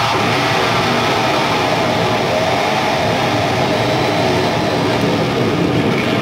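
Live heavy-metal band ending a song: a held distorted electric-guitar chord and crashing cymbals in a loud, dense wash of noise, with wavering guitar tones over it.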